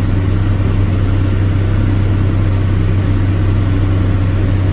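Tractor engine running steadily at a constant speed, a loud, even low hum.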